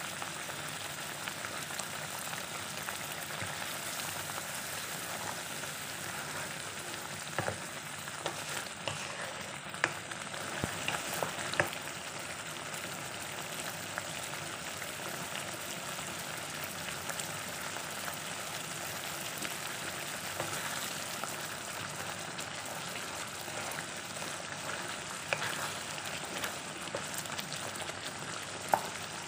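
Chilli sambal sauce bubbling and sizzling steadily in a nonstick wok, with a few light knocks along the way and a wooden spatula stirring it near the end.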